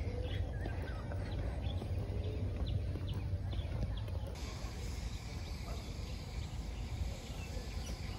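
Outdoor ambience: a steady low rumble, with a few short, high bird chirps in the first half.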